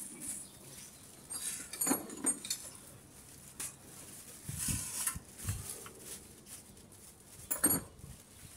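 Scattered clinks and knocks of hand tools and metal parts as hands work down in a car's engine bay, with a couple of dull thuds about halfway and the sharpest knock near the end.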